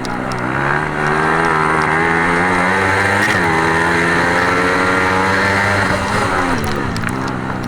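Racing motorcycle engines running hard on an oval, swelling louder about a second in, with pitch sweeps as the bikes pass, then easing near the end.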